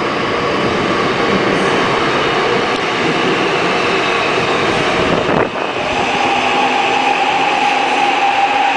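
Seoul Metro Line 6 subway train pulling into the station, its wheels and motors running loud. About six seconds in, a steady high whine sets in.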